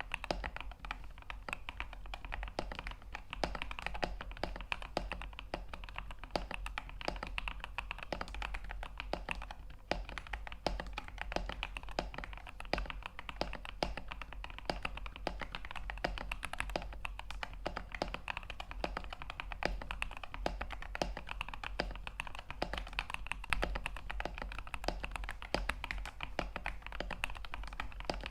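Mechanical keyboard with newly fitted keycaps being typed on quickly and continuously, a dense run of key clacks: a sound test of the new keycaps.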